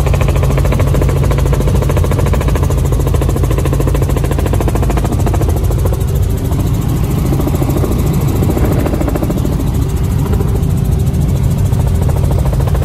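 Helicopter in flight heard from inside the cabin: a loud, steady drone of engine and rotor, with a low hum and a fast, even beat from the rotor blades.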